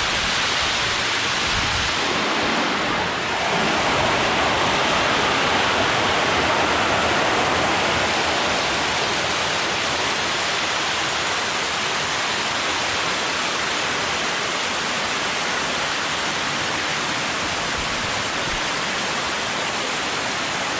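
Waterfall heard up close: a steady, loud rush of falling water.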